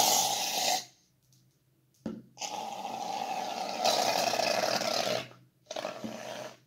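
Aerosol can of shaving foam dispensing into a jar of water, hissing in three spurts: one that stops just under a second in, a long one of about three seconds, and a short one near the end.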